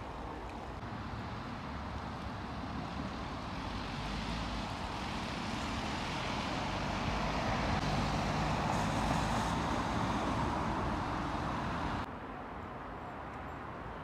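Road traffic: a passing vehicle's engine and tyre noise on a wet street, building up over several seconds, then cutting off suddenly near the end.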